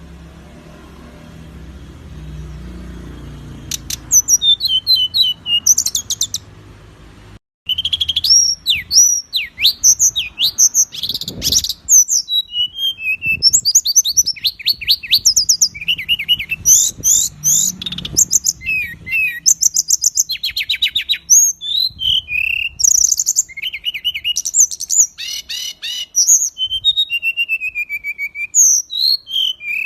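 Songbird singing a dense, fast string of sharp chirps, trills and falling whistled phrases, the harsh, tightly packed 'tembakan' style of masteran song used to tutor other songbirds. The song starts about four seconds in, with a short break near seven and a half seconds.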